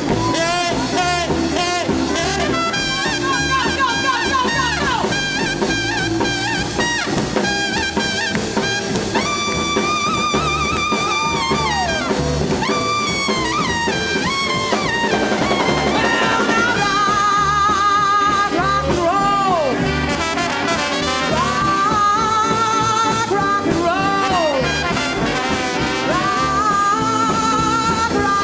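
Live swing band instrumental break: the horn section plays held, vibrato-laden riffs with several sharp downward falls at note ends, over a steady drum and upright-bass groove.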